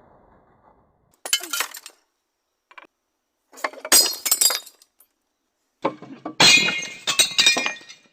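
Mallet blows smashing a brittle, glass-like object: three bouts of cracking and shattering with fragments clinking, the last one the longest, with near silence between them.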